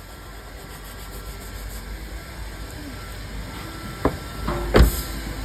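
Steady low rumble and hiss slowly growing louder, with a sharp click about four seconds in and a louder knock just before the end.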